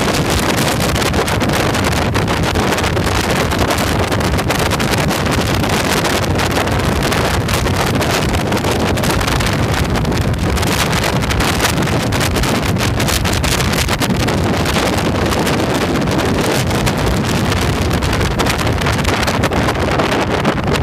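Wind rushing over the microphone of a camera on a moving motorcycle, a loud steady noise with the bike's running engine and road noise beneath it.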